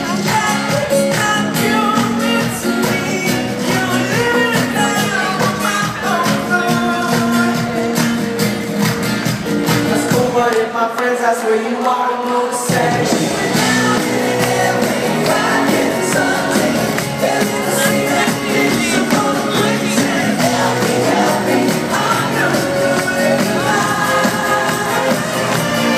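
Live band playing with a singer. The bass drops out for about two seconds near the middle, then the full band comes back in.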